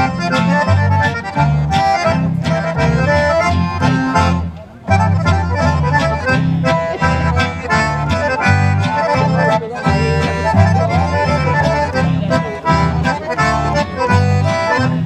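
Two accordions playing a lively traditional tune together, backed by acoustic guitar and double bass, with a steady bass beat. The music drops out briefly about four and a half seconds in, then carries on.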